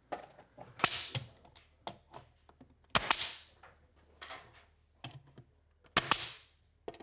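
Pneumatic nail gun tacking trim molding to a ceiling: three sharp shots about three seconds apart, each followed by a short hiss of air, with lighter clicks in between.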